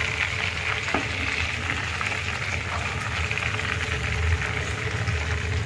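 Marinated chicken pieces deep-frying in hot oil in a pan, a steady sizzle and crackle.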